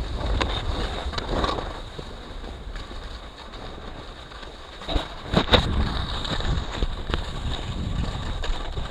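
Wind buffeting the microphone while skiing off-piste, a low rumble with a rushing hiss that eases for a couple of seconds. A few sharp knocks come about five seconds in.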